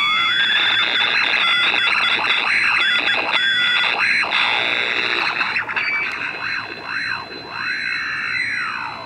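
Grundig G8 portable radio on the AM band, tuned to a local station and swamped by interference from a 555-timer-driven MOSFET switching circuit. It gives a loud, shifting buzz with whistling tones that sweep up and down in arcs over a steady high whine. The noise changes as the circuit's capacitor charges and dumps through a neon bulb and as the underdriven 555 timer flips between operating modes.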